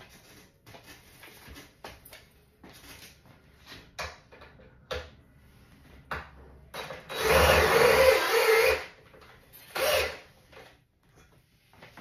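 Cordless drill running into the wooden bracket of an easel: one run of about two seconds, then a short burst about a second later, after a few light knocks of handling.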